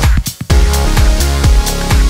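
Electronic dance music with a heavy bass and a steady beat, briefly dropping out just after the start.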